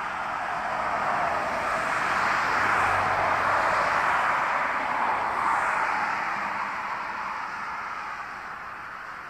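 Airbus A380's four jet engines at take-off power, heard from afar as a steady roar that swells over the first few seconds and fades away toward the end.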